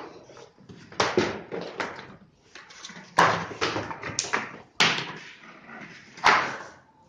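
Cardboard TV shipping box being unpacked by hand: five loud, sudden tearing and scraping noises, each trailing off over about half a second.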